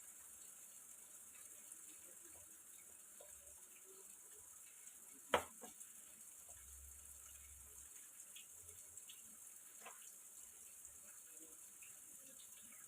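Near silence with a steady faint hiss, broken by one sharp click about five seconds in and a fainter one near ten seconds, like small handling knocks on the bench.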